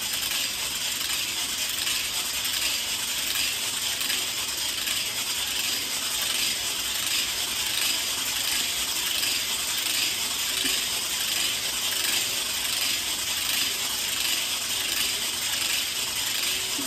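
Weighted hula hoop spinning around the waist: the weight's roller runs around the segmented track with a continuous, steady rattling clatter.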